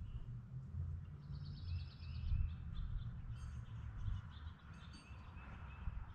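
Songbirds chirping, with a quick trill about a second in and more chirps later, over a low, uneven rumble.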